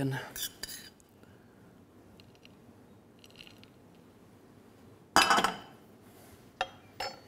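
Metal spoon clinking and scraping against a metal pan while toasted flaked almonds are spooned out, with one loud ringing clink about five seconds in and two short clicks near the end.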